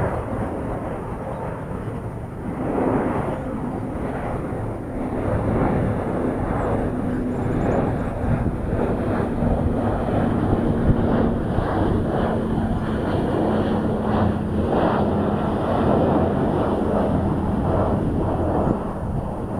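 Blade 350 QX quadcopter's motors and propellers humming at a steady pitch, with repeated gusts of wind buffeting the microphone.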